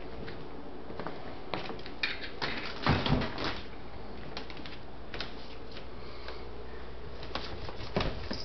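Scattered light knocks and clicks of a toddler handling and bumping a wooden dining chair on a hardwood floor. There is a louder thump about three seconds in and another near the end, over a steady low hum.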